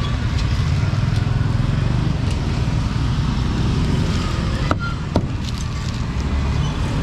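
Road traffic: a motor vehicle's low, steady engine rumble, with a sharp knock about five seconds in.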